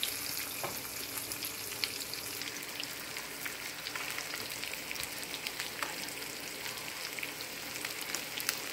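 Breaded basa fish fillets shallow-frying in coconut oil in a pan: a steady sizzle with many small crackles and pops.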